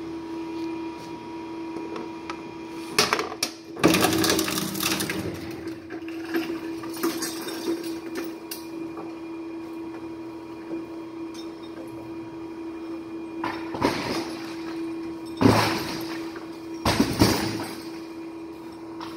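Industrial hard drive shredder running empty with a steady hum, broken by loud clattering bangs a few seconds in and several more near the end.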